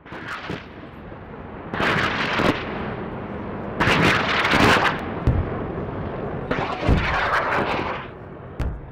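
Title-intro sound effects: several loud, noisy whooshes, each swelling up, with deep booming hits in among them and one last sharp boom near the end.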